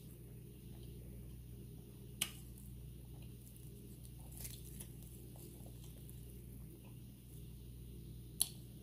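Faint eating sounds: the flaky pastry crust of a Jamaican beef patty being handled and pulled apart by hand, with chewing and small crackles, and two sharp clicks, one about two seconds in and one near the end.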